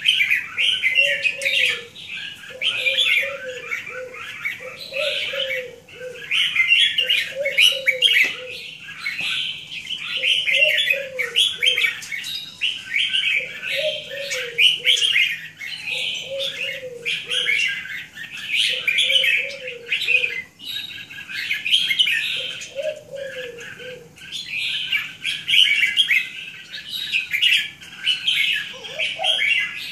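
Caged zebra dove cooing a short phrase about every two to three seconds, over the constant chirping of small birds.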